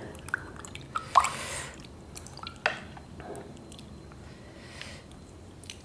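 Water poured from a plastic dipper over hands, splashing and dripping for a second or so, then a sharp tap about two and a half seconds in and a few faint drips.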